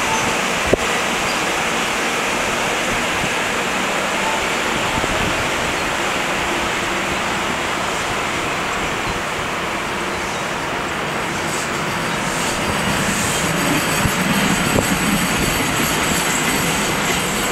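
NJ Transit passenger coaches rolling slowly past a station platform: a steady rumble of wheels on rail, with one sharp click a little under a second in and some faint metallic squealing in the last few seconds.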